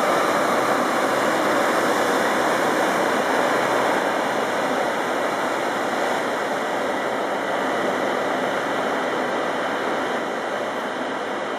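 Steady rush of churning water from the white wake of a fast pilot boat and the ship's own wash, easing a little over the last few seconds.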